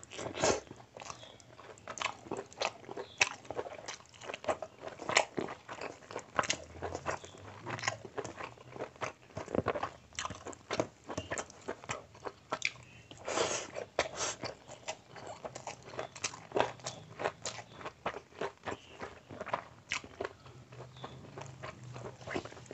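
Close-miked chewing and mouth smacks of a person eating curry-soaked rice and mutton by hand: a dense, irregular run of sharp clicks and smacks.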